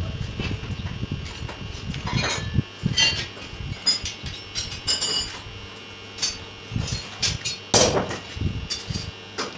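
Curved steel flat bars being set into a steel window-grill frame on a concrete floor: irregular metallic clinks and knocks, some ringing briefly, the loudest about eight seconds in. A low crackling rumble fills the first two seconds.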